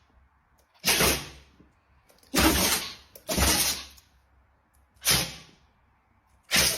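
Dog sneezing: five short, sharp bursts of breath about a second or so apart, each cutting in suddenly and dying away quickly.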